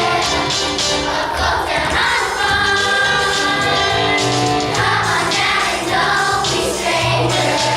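A group of children singing a song from the musical in chorus over instrumental accompaniment.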